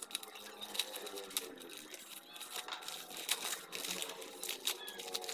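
Paper wrapping crinkling and tearing in many quick, irregular crackles as it is pulled off a wooden rifle stock by hand.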